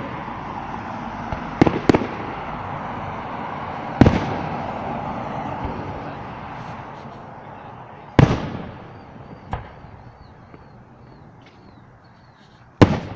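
Fireworks bursting: five sharp, loud bangs, a quick pair about 2 s in, then single ones at about 4 s, 8 s and near the end. Between the bangs a crackling hiss fades away over the first half.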